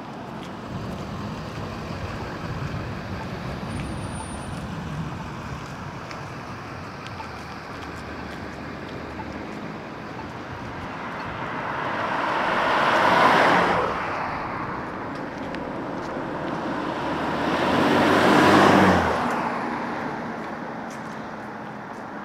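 Steady road traffic, with two cars passing close by one after the other, each swelling to a peak and quickly fading: the first about halfway through, the second a few seconds later.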